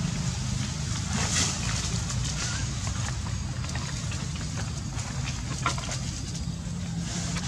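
A motor running steadily with a low hum, with scattered rustles and clicks over it.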